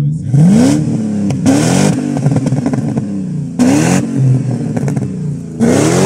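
Jeep Grand Cherokee WJ's 4.7-litre V8 through a straight-piped exhaust, revved hard four times while standing. Each blip rises sharply in pitch and falls back to a lumpy idle.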